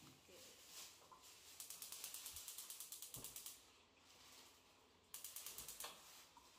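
Gas stove's spark igniter clicking rapidly, about ten clicks a second, in two runs: one of about two seconds, then a shorter one near the end, with a dull knock between them.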